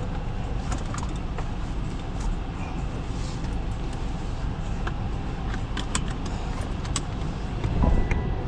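Car moving slowly, heard from inside the cabin: a steady low rumble of engine and tyres with scattered light clicks. Near the end there is a louder bump and a short beep.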